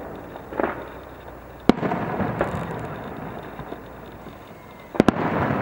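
Aerial fireworks shells bursting: a softer burst about half a second in, a sharp bang near two seconds, then two sharp bangs in quick succession near the end, with rumbling echo between.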